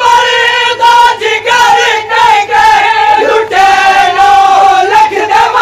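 Crowd of men chanting a Siraiki noha (Shia mourning lament) together, singing the refrain in long, held lines.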